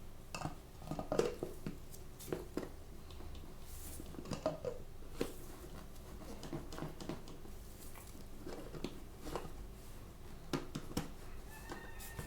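Hands unwrapping and handling the packaging of a Tsum Tsum blind bag or box: irregular crinkles, clicks and taps, with a short pitched call near the end.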